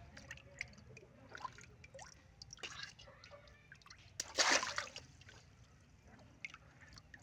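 Water sloshing and splashing in a plastic tub as hands squeeze water balloons under the surface. About four seconds in there is a loud, sudden splash, a water balloon bursting underwater.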